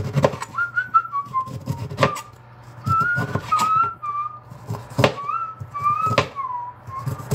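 A man whistling a wavering tune while a knife cuts a lemon on a plastic cutting board. About five sharp knocks of the blade hitting the board come through the whistling.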